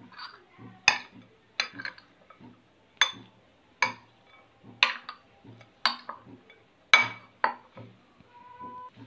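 Steel spoon clinking against the rim and sides of a bowl while tossing sliced vegetables, in sharp irregular clinks about once a second, some in quick pairs.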